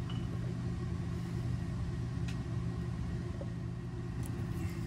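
Steady low machine hum with a few evenly spaced low tones, holding level throughout, with a couple of faint taps of tools and a bottle being handled on a work table.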